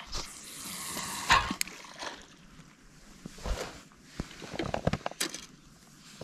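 A feeder rod being cast: a swishing rush of line running off the spinning reel for about a second and a half, then scattered clicks and knocks from the reel and rod being handled.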